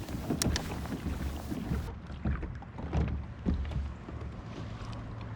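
Knocks and clatter of handling on a fishing kayak, over a low steady rumble, with the knocks thinning out after about four seconds.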